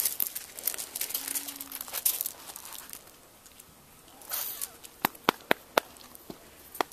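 Small gravel pebbles crunching and rattling under a puppy as it rolls and wriggles on its back, louder in the first two seconds, followed by a handful of sharp clicks of stones knocking together.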